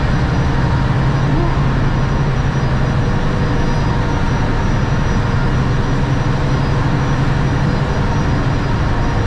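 Steady, unchanging low drone of a car ferry's engines, heard on its enclosed vehicle deck.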